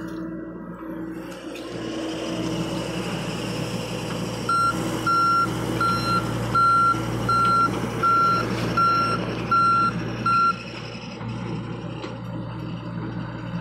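John Deere 60G compact excavator's diesel engine running steadily while its travel alarm beeps nine times, about once every 0.7 s, starting about four seconds in and stopping about ten seconds in as the machine tracks away.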